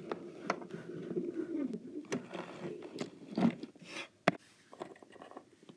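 Handling noise from plastic toy horses and a small metal chain lead being moved about, with scattered sharp clicks and taps, the loudest about four seconds in. A low wavering murmur sits under the first two seconds or so.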